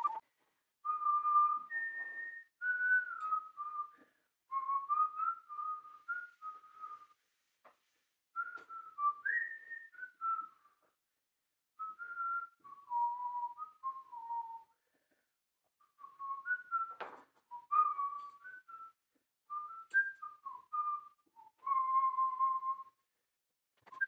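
A woman whistling a wandering tune through pursed lips, in short phrases of gliding notes with brief pauses between them. One short click sounds about two-thirds of the way through.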